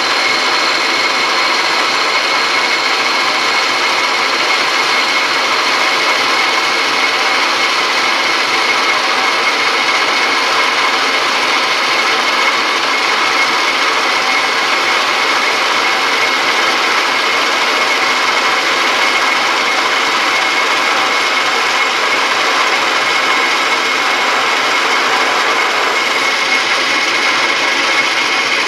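1967 South Bend 13-inch lathe running under power feed while turning down a metal shaft: a steady, noisy machine whine with a couple of fixed high tones over a dense hiss.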